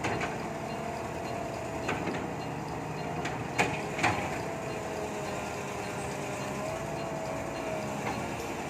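Steady mechanical running noise with a faint wavering tone, broken by a few sharp metallic knocks, the loudest two close together near the middle.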